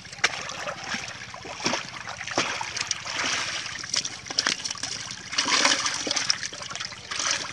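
Shallow muddy pond water splashing and dripping as live fish are tipped from a plastic basket into a clay pot and a hand sweeps through the water, with a louder stretch of splashing about five and a half seconds in.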